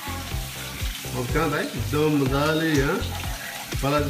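Kitchen tap running with a steady hiss onto raw chicken in a plastic colander as it is rinsed. A singing voice comes over it, on long wavering held notes from about a second in and again near the end.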